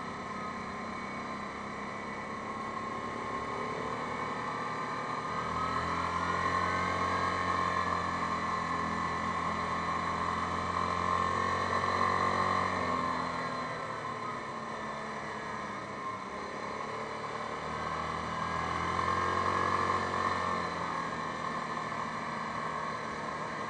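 Yamaha Grizzly 550 ATV's single-cylinder engine running under way, heard from the handlebars. It speeds up about five seconds in, holds, eases off, then picks up again for a few seconds near the end.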